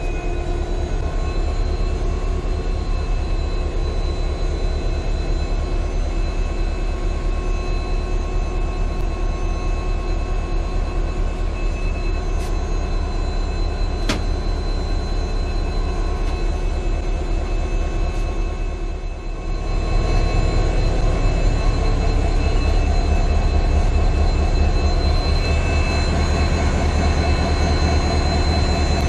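Diesel engine of a WDP4D diesel-electric locomotive (EMD 16-cylinder two-stroke) running steadily: a heavy low drone with steady whining tones over it. It dips briefly, then grows louder from about twenty seconds in, with one sharp click about fourteen seconds in.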